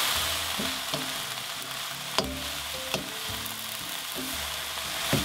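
Vegetables and bean sprouts sizzling in a hot wok with a steady hiss, stirred with a wooden spatula that knocks against the pan four times.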